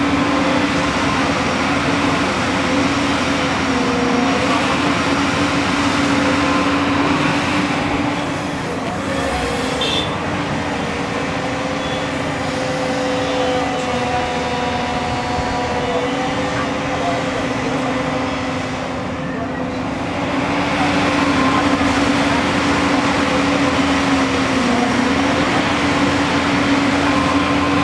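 Tracked JCB excavator's diesel engine running under load with a steady hum and whine from the hydraulics as the boom and bucket dig and swing. The sound eases off slightly about two-thirds of the way through.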